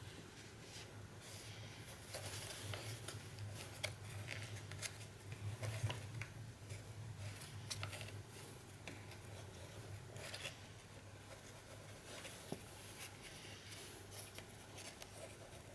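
Faint scraping, rustling and small irregular clicks as hands work inside the leather liner of a WW1 pickelhaube helmet, handling the liner and its small metal fittings, over a low steady hum.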